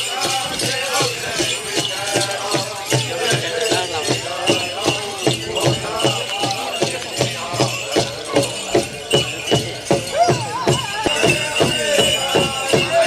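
Powwow drum group singing over a big shared drum struck in a steady, fast beat of about three strokes a second, with bright jingling over it.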